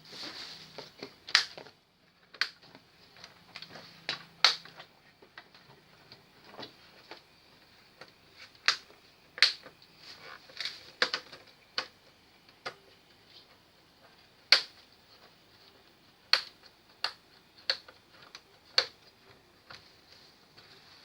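Irregular sharp clicks and taps of hard plastic and metal parts being handled while an LED TV is taken apart, about a dozen louder clicks spaced a second or more apart.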